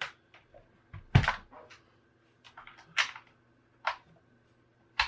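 Plastic knocks and clicks from a laptop being handled while its power is tried, about five separate knocks, the loudest about a second in.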